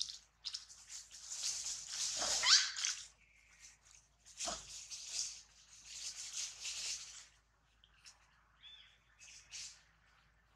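Leaves and twigs rustling and shaking in bursts as a young macaque clambers and swings through a leafy tree, with a brief high squeak about two seconds in.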